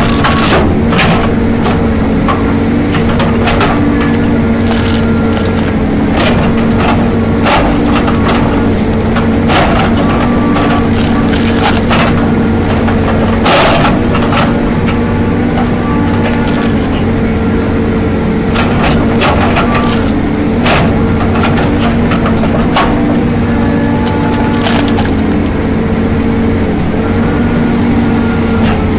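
A heavy wood-processing machine's engine running steadily while timber cracks and splinters under it in irregular sharp snaps, the loudest about halfway through.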